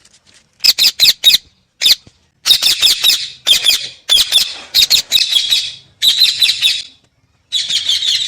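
Parrots giving shrill, high-pitched chirping calls in quick bursts of several rapid notes, with a short pause about seven seconds in.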